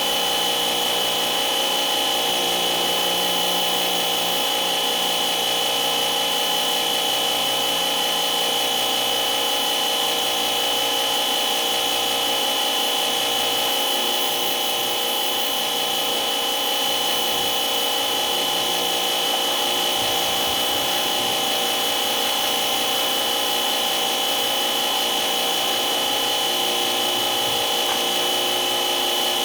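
A motor-driven tool running steadily without a break, with a constant high whine.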